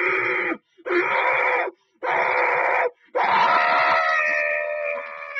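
A person's voice screaming: three short screams with gaps between them, then one longer scream from about halfway through.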